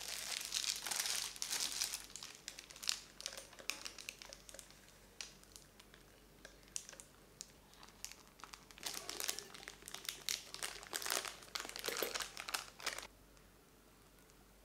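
Plastic piping bag crinkling and rustling as it is handled, in two spells: one at the start and a longer one from about two-thirds of the way in, stopping shortly before the end, with scattered small crackles between.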